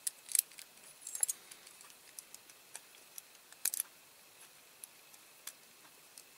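Light metallic clicks and taps from handling a miniature wheel puller, its steel pins and threaded screw knocking as it is fitted onto a diecast model car's wheel. The clicks come scattered and irregular, with a louder few about three and a half seconds in.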